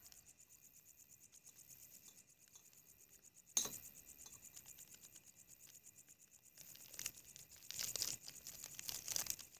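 Faint crinkling of a plastic coffee packet and scraping of a plastic spoon as instant coffee powder is scooped into a steel tumbler. There is one sharp click about three and a half seconds in, and the crinkling grows busier near the end.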